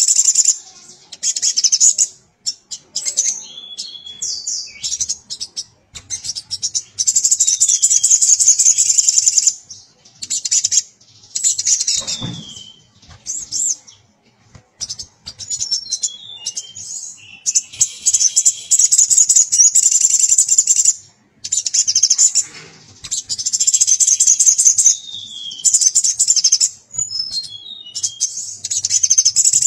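Male sogon (sunbird) singing in full voice: loud, high-pitched rapid trilling phrases repeated one after another with short pauses, a male calling a female. A brief thud comes about twelve seconds in.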